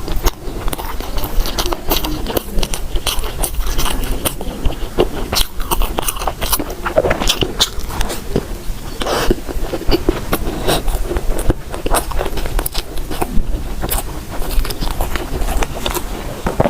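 Close-miked eating: a person biting and chewing food, heard as a steady run of irregular sharp mouth clicks, several a second.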